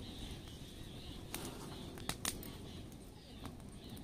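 Open wood fire burning under a spit roast: a low steady rumble with scattered sharp crackles, the loudest a quick cluster of pops about two seconds in.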